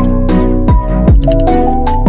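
Background music with a steady beat: a melody of short notes climbing step by step over sustained chords.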